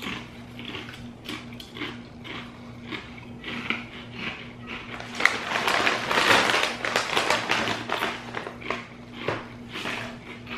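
Crunching and chewing of ridged potato chips, with many short sharp crunches. About halfway through, a foil chip bag crinkles for a few seconds, the loudest part, over a faint steady hum.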